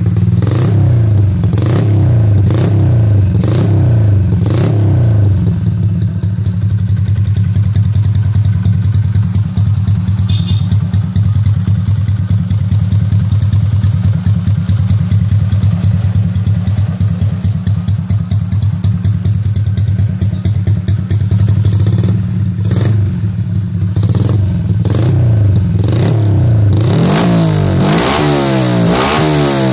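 Honda XRM 125 motorcycle's single-cylinder four-stroke engine, revved in a run of short throttle blips, then idling steadily for about fifteen seconds. More quick blips follow, then a longer rev that climbs and drops back near the end.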